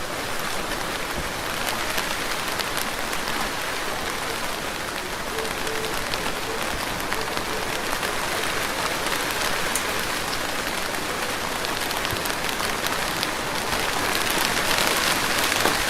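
Steady rain falling, with many single drops ticking on a hard surface; it grows a little heavier near the end.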